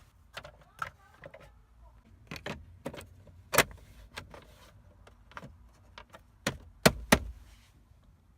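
Scattered sharp clicks and knocks of parts and tools being handled while reassembling a van's steering column. The loudest are a single knock about three and a half seconds in and two knocks in quick succession near the end.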